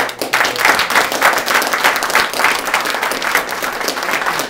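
Audience applauding: many people clapping at once, loud and steady, starting abruptly.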